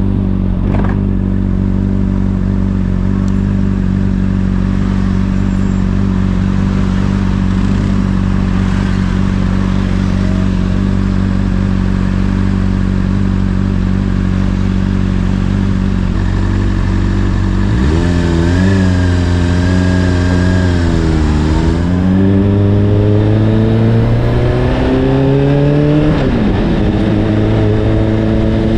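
Honda CBR600RR's inline-four engine through an Akrapovic exhaust, idling steadily at a low, even pitch. About two thirds of the way in, it revs up as the bike pulls away, and it climbs through the gears with two upshifts where the pitch drops back and rises again.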